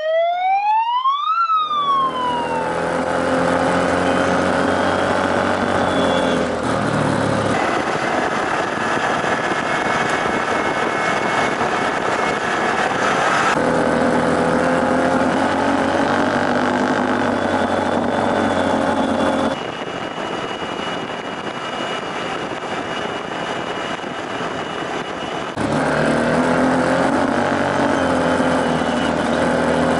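Off-road side-by-side's engine running steadily while under way on a dirt trail. About a second in, the revs rise and then fall away. The sound shifts abruptly several times as one stretch of riding gives way to another.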